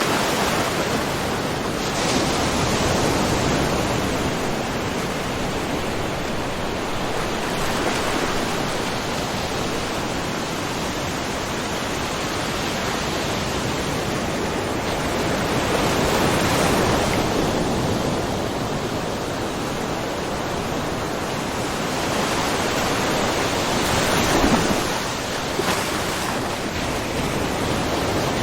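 Small ocean waves lapping and splashing in a rocky cove, a continuous wash of water that swells and eases every few seconds.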